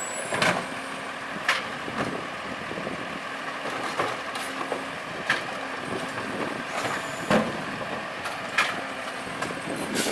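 Small plastic toy garbage truck being handled: irregular sharp clicks and knocks, about one every second or two, over a steady hiss.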